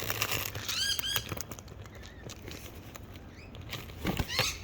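Wild birds moving about while being fed: rustling and wing flapping, with two short chirps that rise and fall in pitch about a second in and a few soft thumps near the end.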